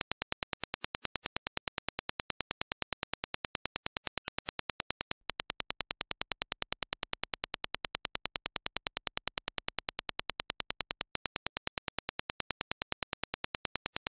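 Rapid train of evenly spaced single test clicks (Dirac impulses), several a second. About five seconds in, the clicks switch to the same impulses played through Philips Fidelio X2HR headphones and change in tone, then switch back to the clean reference clicks about eleven seconds in.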